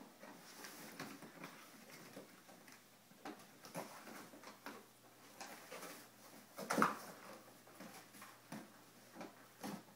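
Two English springer spaniel puppies chewing and pawing at a flattened cardboard box: irregular rustling, scraping and tearing of cardboard, with one louder crunch about seven seconds in.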